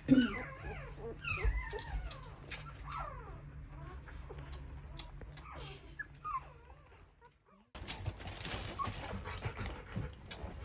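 Golden retriever puppies whimpering and squeaking in high, wavering cries, thickest in the first few seconds and then thinning out. The sound drops out briefly about seven seconds in.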